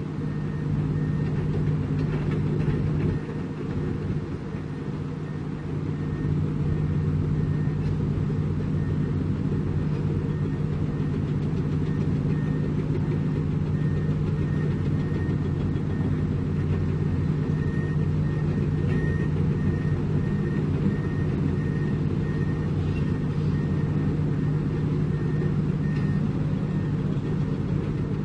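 Heavy diesel engine of construction machinery running steadily at constant speed, a deep even drone. A faint high beep repeats at a regular pace through the middle.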